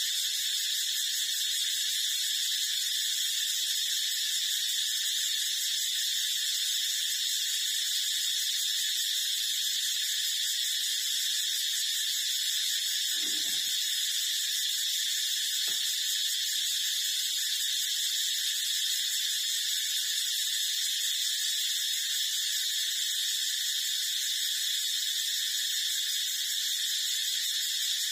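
A steady, unchanging high-pitched hiss, with two brief faint soft sounds about halfway through.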